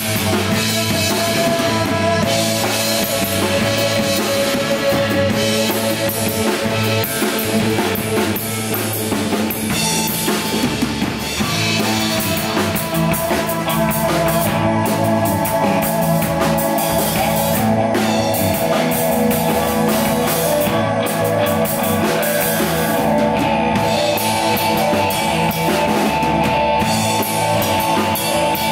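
Live rock band playing loudly: drum kit, electric bass and electric guitar, with long held notes sounding over steady drumming.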